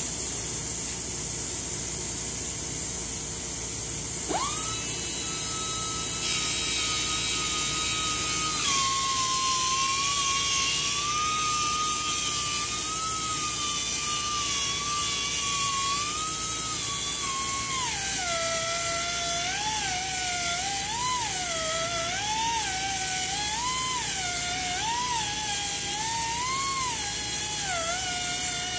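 Pneumatic sander-polisher with an air hiss, spinning up to a high whine about four seconds in. The whine drops in pitch about nine seconds in, then again near eighteen seconds, and wavers up and down as the pad is pressed into the 45-degree bevel on the marble edge under changing load.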